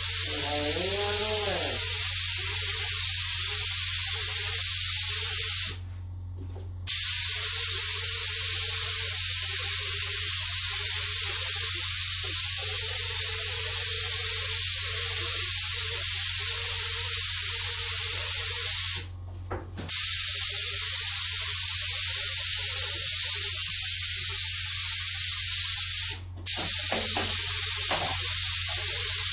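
Paint being sprayed onto motorcycle fairing panels: a steady hiss of spray that stops briefly three times as the trigger is let go between passes, over a steady low hum.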